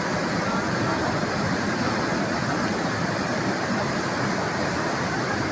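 Flash-flood water rushing: a steady, dense noise of a torrent in spate.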